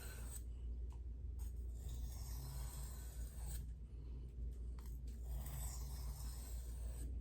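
A knife blade stroked across a sharpening stone, a faint scratchy rubbing that comes and goes in slow strokes, over a steady low hum.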